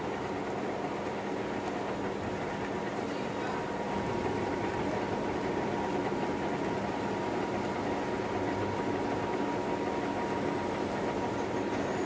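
Metal lathe running steadily while an M20x2.5 tap, used as a threading tool, cuts a thread into the spinning metal bar; a steady hum with a faint constant whine.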